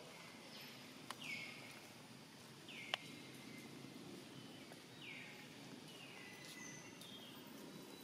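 Faint outdoor ambience with a bird calling repeatedly in the background, about six short calls that each fall in pitch. Two sharp clicks stand out, about one second and three seconds in, the second being the loudest sound.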